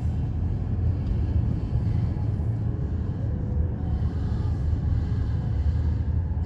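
Steady low rumble of a moving vehicle, with no sudden events.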